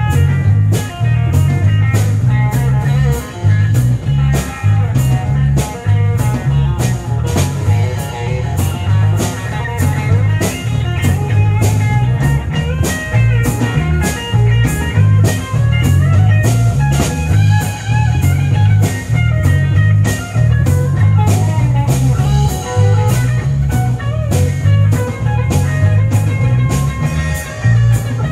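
Live rock band playing an instrumental passage: electric guitar lines over bass guitar and a drum kit keeping a steady beat, with no vocals.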